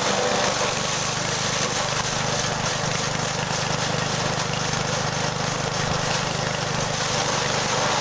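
Small engine of a multi-function chopping machine running steadily at a constant speed.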